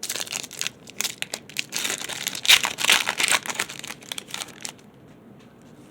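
Plastic wrapper of a trading-card pack crinkling as it is torn open and handled, dense irregular crackling that is loudest about halfway through and stops near the end.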